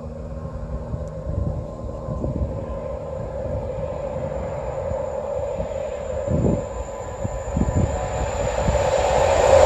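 A train approaching on the main line, growing steadily louder, with a steady hum that builds towards the end as it nears.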